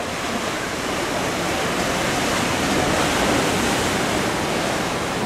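Sea surf washing against the lava rocks of a rocky shore, a steady rush of noise that swells slightly around the middle.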